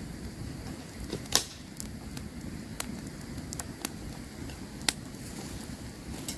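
Campfire crackling, with irregular sharp pops of burning wood over a steady low rush of the flames; the loudest pop comes about one and a half seconds in.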